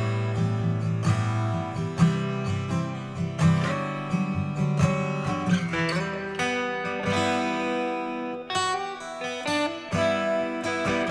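Background music: acoustic guitar, picked and strummed.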